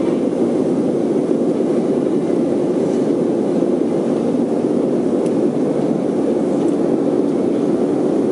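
Cabin noise of a Boeing 737-400 in flight: the steady, deep drone of its engines and the air rushing past the fuselage, heard from a window seat behind the wing.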